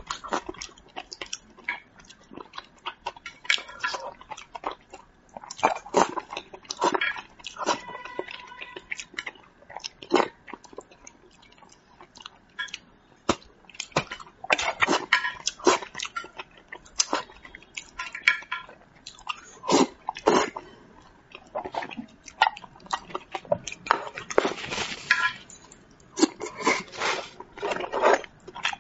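Close-up mouth sounds of a person eating braised carp: wet chewing and lip smacks in irregular short clicks, some sharper and louder than others.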